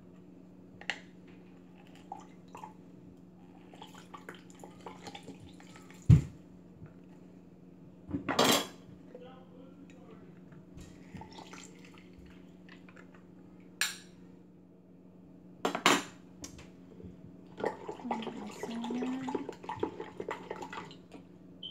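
Kitchen utensils and cups being handled on a counter: scattered clicks and clinks, with one sharp knock about six seconds in. Near the end comes a stretch of a spoon stirring and scraping in a plastic measuring cup. A steady low hum runs underneath.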